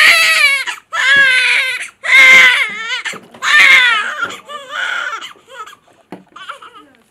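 Newborn baby crying: a run of loud wails about a second apart, growing weaker and trailing off near the end.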